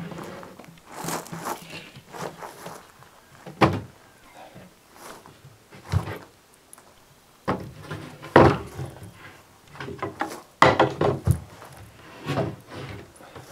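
Melamine-faced chipboard cabinet carcass being turned upside down by hand: a series of separate wooden knocks and thumps with scraping as it shifts against the board beneath, the loudest thumps in the second half.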